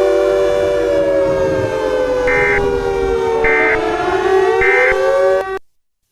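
Civil defense siren sounding a chord of steady tones, one tone sliding slowly down and then back up, with three short high beeps about a second apart. It cuts off suddenly near the end.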